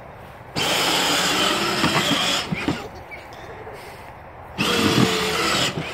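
Power Wheels Jeep Wrangler ride-on toy's electric drive motors and gearboxes whining in two bursts as the pedal is pressed and released: the first starts about half a second in and runs nearly two seconds, the second starts about four and a half seconds in and runs just over a second, each cutting in and out abruptly.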